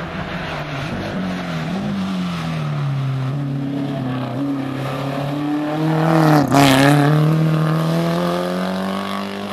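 Historic saloon race car's engine coming off the throttle for a hairpin, revs falling, then accelerating hard out of it with revs climbing. There is a brief break in the revs, like a gear change, about six and a half seconds in, at the loudest point.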